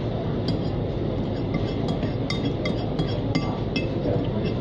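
Cutlery clinking against a plate while eating: a string of light, ringing clinks, about two a second, over a steady background noise.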